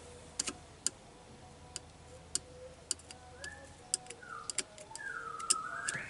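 Small sharp clicks at irregular intervals, about fifteen over the few seconds: the metal probe of a DC test pen tapping and scraping on horn wiring terminals. A few short chirps sound in the second half.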